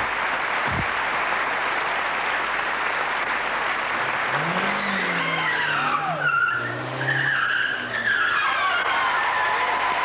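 Studio audience applauding, while from about four to nine seconds in a car's engine revs up and down and its tyres squeal on the studio floor as it turns across the stage.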